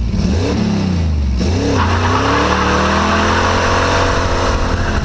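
Car engine revving in short up-and-down swells. From about two seconds in it is held at a steady, slowly rising high note, with a loud hissing squeal on top like tyres skidding.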